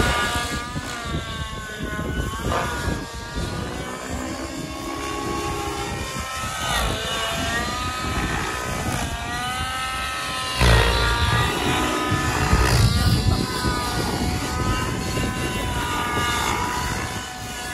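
Gaui NX7 nitro RC helicopter flying 3D aerobatics: the engine and rotor pitch swoop up and down again and again as it flips, climbs and passes by. Gusts of wind buffet the microphone partway through.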